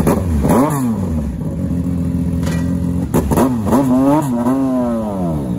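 Legend car's Yamaha four-cylinder motorcycle engine idling and being blipped: a quick rev just after the start, then a longer run of several revs rising and falling about three seconds in, which drops back to a steady idle near the end.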